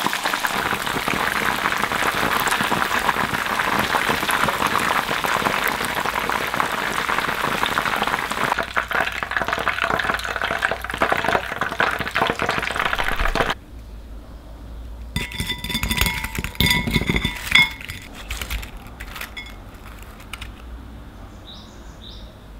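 Starch-battered pork pieces deep-frying in oil: a dense, steady crackling sizzle that cuts off abruptly a little past halfway. Then come a few metallic clinks and rattles with a brief ring, from the wire-mesh skimmer knocking against the pot as the fried pieces are lifted out.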